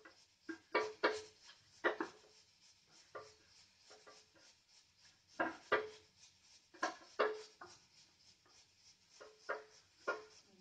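Steel spoon stirring dry gram flour and maida in a bowl, clinking against the bowl in about a dozen irregular taps, each with a short ring.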